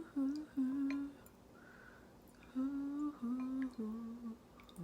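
A woman humming a tune: a few short held notes, a pause, then a run of notes stepping down in pitch.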